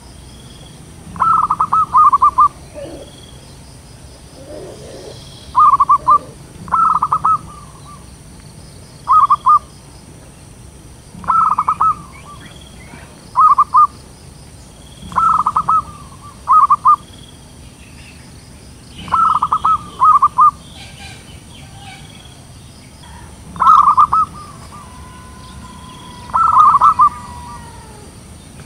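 Zebra dove cooing: loud short phrases of rapid staccato coos repeated every two to three seconds, with faint chirps of other small birds behind.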